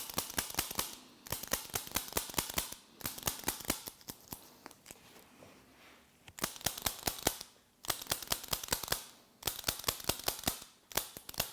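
Chiropractic activator gun clicking as it delivers adjustment impulses, in quick runs of several sharp clicks a second with short pauses between runs.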